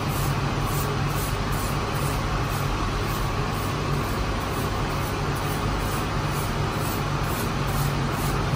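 Steady mechanical drone with a low hum from a bakery's rotary bread oven running, its perforated steel deck turning. Faint swishes of a straw brush sweeping the deck sit over it.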